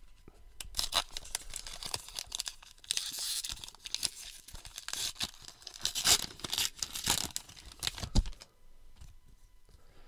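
A baseball card pack wrapper being torn open and crinkled, with irregular crackling tears that stop about eight and a half seconds in.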